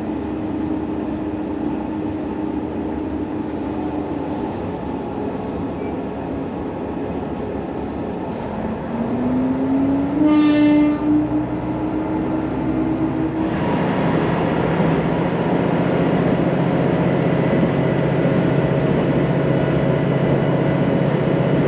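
Diesel railcar running, its engine note rising a little before halfway. A short horn blast sounds near the middle, and from about two-thirds in the engine picks up to a louder, heavier note as the train accelerates.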